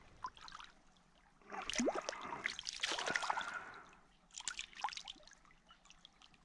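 Shallow stream water splashing as a hand handles a small, freshly caught trout at the surface. There is a loud, choppy burst of splashing from about a second and a half in to nearly four seconds, then a few shorter splashes about five seconds in.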